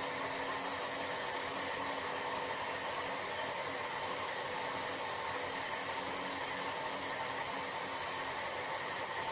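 Ferrari 458 Spider's V8 idling steadily, heard as an even rushing noise with a faint hum and no revving.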